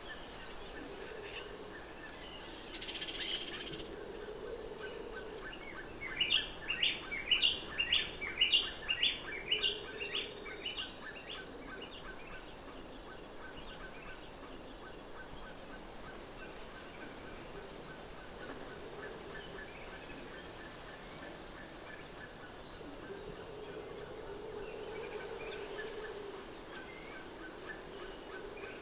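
Tropical forest ambience: insects giving a steady high-pitched drone, with a bird calling a rapid run of about a dozen repeated notes, roughly two to three a second, starting about six seconds in and lasting around five seconds.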